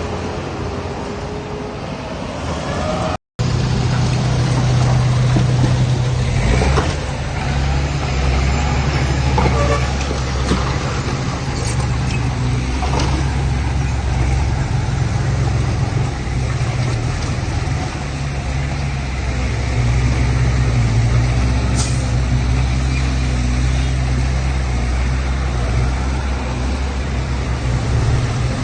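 Heavy diesel engine of earthmoving machinery (dump truck or bulldozer) running steadily with a deep, even hum, broken by a brief cut about three seconds in. A few faint knocks come over it.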